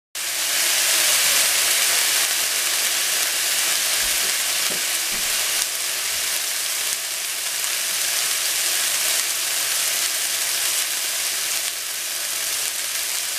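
Diced beef steak frying in a pan: a steady, even sizzle, with a few faint low knocks around the middle.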